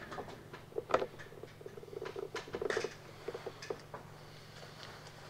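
Light clicks and knocks of objects being handled, the sharpest about a second in, with a short rapid rattle about two to three seconds in, over a steady low hum.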